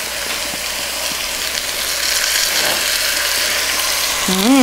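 Wine sizzling and crackling steadily in a hot braising pot as it cooks off with browned veal shanks: the pan is being deglazed and the alcohol reduced. It grows a little louder about two seconds in.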